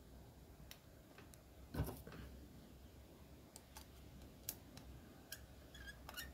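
Scattered light metallic clicks and taps, with one louder knock about two seconds in and a few quick clicks near the end, as small parts of a three-wheeler's brake pump (master cylinder) are handled and fitted by hand.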